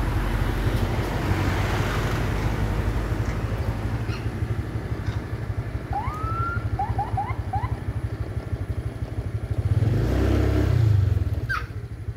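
Motorcycle engine idling with a steady low pulse, swelling louder about ten seconds in. A few short rising chirps sound over it near the middle and once near the end.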